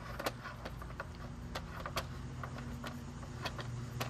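Faint handling noise from an airsoft rifle: a few scattered light clicks and scrapes as the suppressor is worked off the barrel, over a steady low hum.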